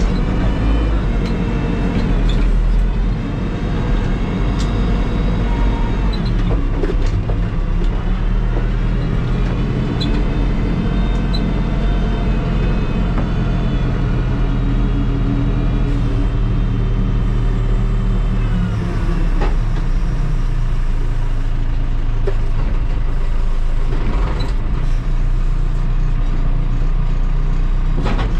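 Terex TLB-815 backhoe loader's diesel engine running under load, its pitch rising and falling again and again as it works, with a few short knocks.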